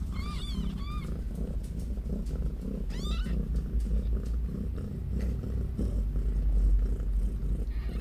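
Mother cat purring steadily while her newborn kittens nurse, with thin high squeaks from the kittens: three short ones about half a second in, one rising squeak around three seconds, and another near the end.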